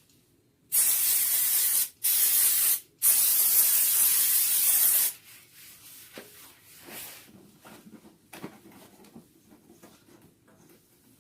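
Aerosol spray can sprayed in three bursts, a short one, a shorter one, then a longer one of about two seconds, each a loud hiss. Faint handling clicks follow.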